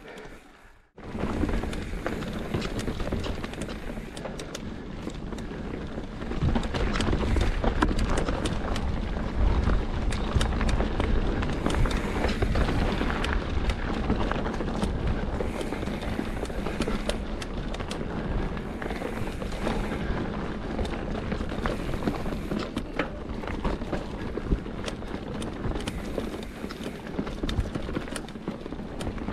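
Wind rushing over the microphone during a ride, with frequent rattles and knocks from rolling over rough, bumpy ground. Nearly cuts out for a moment about a second in.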